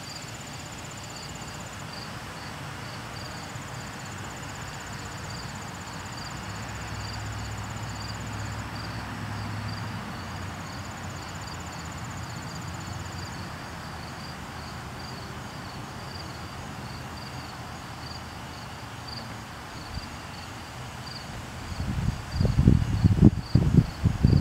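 Insects chirping: a steady, evenly pulsing high chirp, with a higher trill that comes and goes, over a faint low rumble. About two seconds from the end, loud irregular low rumbling bursts set in and drown out the rest.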